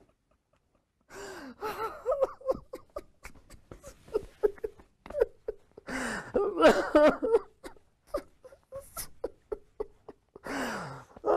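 A man sobbing uncontrollably: after a second of silence, three bouts of gasping in-breaths followed by high wailing cries that fall in pitch, with short choked sobs between them.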